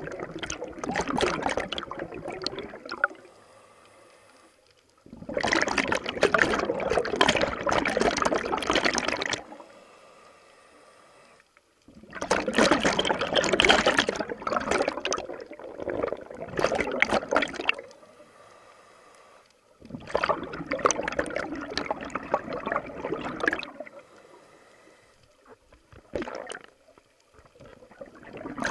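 Scuba regulator exhaust bubbles gurgling underwater as a diver breathes out, in long bursts of three to five seconds with quieter gaps between them for the in-breaths, repeating about every seven to eight seconds.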